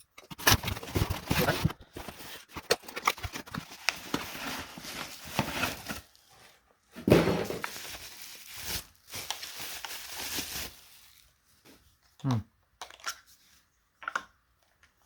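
Packaging being torn and plastic wrap crinkling as a new replacement vacuum battery pack is unwrapped, a dense irregular crackle that dies away about eleven seconds in, followed by a few light handling knocks.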